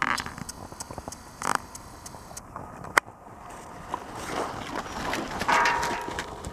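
Hoofbeats of a horse trotting on a rubber-chip arena surface, growing louder as it passes close by in the second half, with scattered sharp knocks, the loudest about halfway through.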